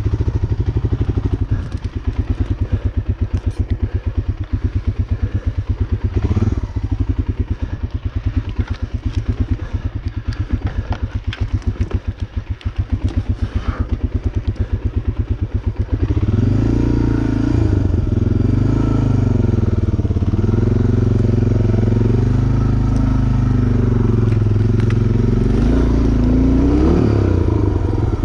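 A motor vehicle's engine running on a climb attempt: an even low chugging at first, then from about sixteen seconds in it revs harder, its pitch rising and falling again and again.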